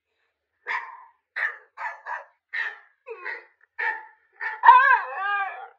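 Dog vocalising: a string of short yips, then a longer wavering howl-like yowl near the end, which is the loudest part.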